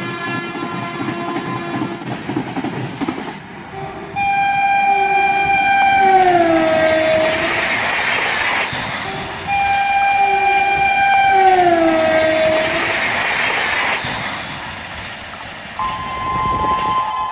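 WAG-12 electric locomotive horn sounding two long blasts, each sliding down in pitch as it ends, with the rushing, clattering noise of the moving train between them. A held horn chord fades out at the start, and a higher single-note tone comes in near the end.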